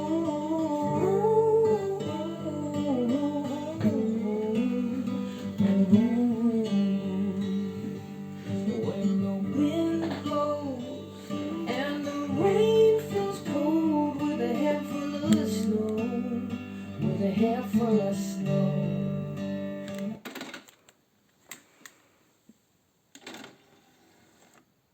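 A song with guitar and singing played through a retro Pioneer stereo and its speakers. The music stops abruptly about twenty seconds in, followed by a few faint clicks.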